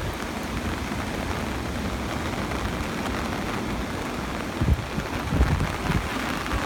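Steady hiss of typhoon rain, with low rumbles of wind buffeting the microphone a few times in the second half.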